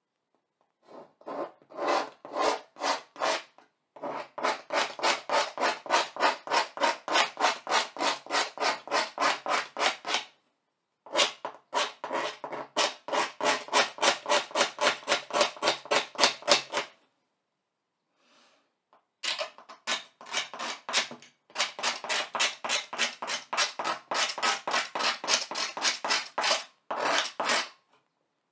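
A hand-held pointed tool scratching lines into a black-coated board, carving through the surface in rapid strokes, about four a second. The strokes come in four runs with short pauses between them.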